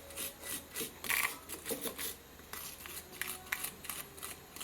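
Brake caliper being scrubbed clean, a series of short, irregular rubbing and scraping strokes.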